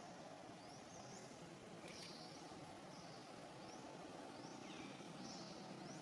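A bird calling with short, high, rising chirps repeated about once a second, faint over a steady outdoor background hiss.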